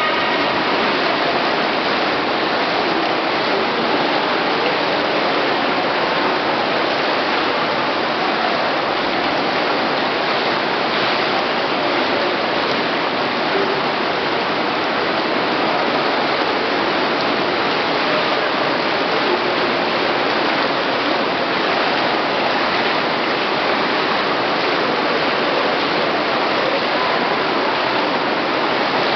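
Steady rush and splash of water in an indoor swimming pool as swimmers swim breaststroke lengths.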